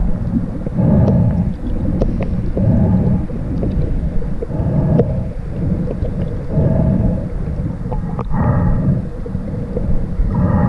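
Muffled, low rumbling and sloshing of water around a swimmer, surging in pulses every one to two seconds as he moves through the water.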